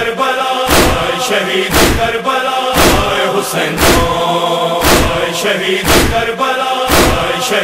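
Noha recitation: a male chorus chants a held lamenting refrain without clear words over rhythmic matam (chest-beating) strokes. The heavy strokes land about once a second, with lighter strokes between them.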